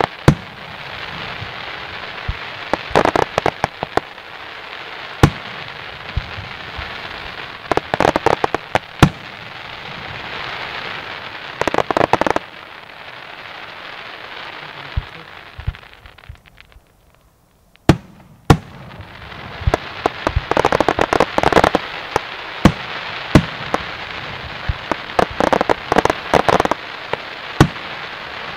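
Aerial fireworks crackling densely as crackle stars burst, with repeated clusters of sharp pops and bangs. About sixteen seconds in there is a brief lull. A single sharp bang ends it, and dense crackling resumes.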